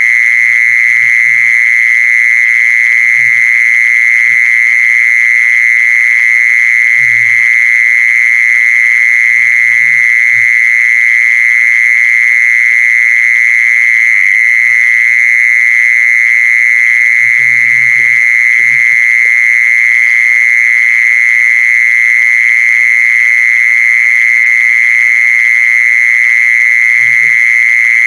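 Mole cricket calling: one loud, unbroken high buzz held at a steady pitch throughout. Faint low knocks are heard now and then.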